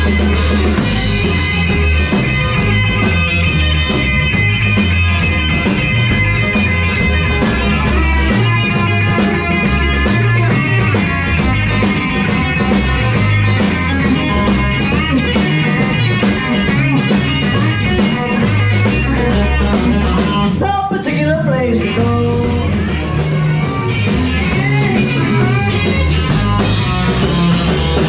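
Live rock band playing: electric guitars, one a Fender Telecaster, over a drum kit with steady cymbal hits. The cymbals drop out for a moment about twenty seconds in.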